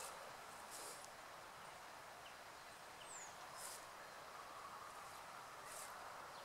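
Near silence: faint outdoor ambience with a few soft rustles and a brief high chirp, like a small bird's, about three seconds in.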